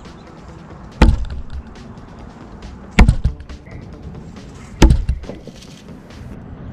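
Thrown knives striking a wooden pallet-and-plank target, three hard impacts about two seconds apart, each followed by a short rattle.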